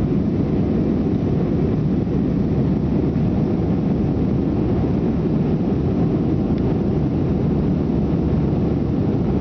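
Airbus A320 cabin noise: the steady, low-pitched drone of the jet engines and airflow heard from inside the passenger cabin.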